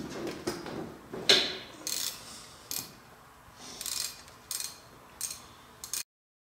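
Steel hand tools and machine parts clinking and scraping against each other as bolts are worked loose at a boring mill's spindle head, in about eight irregular knocks and scrapes, the loudest about a second in. The sound cuts off suddenly near the end.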